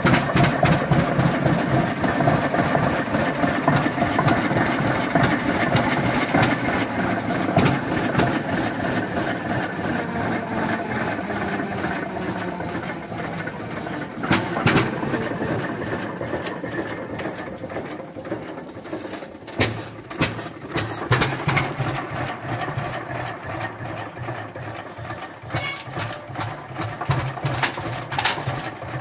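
1926 Rumely M winch tractor's engine running just after starting, with a rapid, even clatter of firing strokes.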